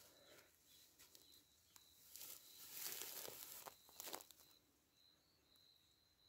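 Near silence with faint rustling from about two seconds in until just past four seconds, over a faint steady high-pitched tone.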